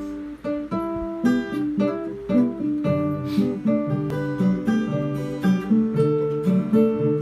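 Instrumental song introduction on guitar: picked single notes, filling out with lower chord notes from about three seconds in.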